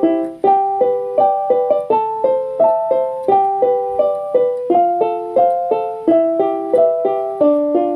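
Instrumental keyboard music: a piano-like melody of plucked, quickly decaying notes with an accompaniment, played at a steady moderate tempo.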